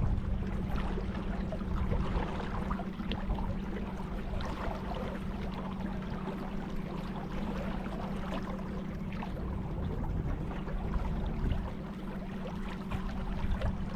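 Water splashing and lapping around a kayak on a river, with scattered small drips and splashes over a steady low hum.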